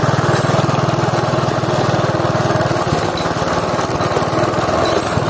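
Small motorcycle engine running steadily as the bike is ridden along a muddy road, its note shifting slightly about three seconds in.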